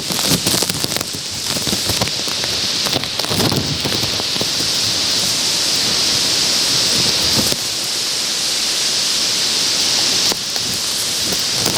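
Torrential wind-driven downburst rain, a loud steady hiss of rain striking the plastic sheet wrapped over the camera. Gusts of wind buffet the microphone with low rumbles near the start and again about three seconds in.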